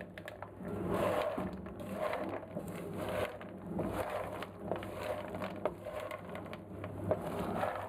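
Wooden spoon stirring honey-coated fried struffoli in a nonstick frying pan: rhythmic sticky scraping and shuffling strokes about once a second, with small clicks of the balls and spoon against the pan. A faint steady low hum lies underneath.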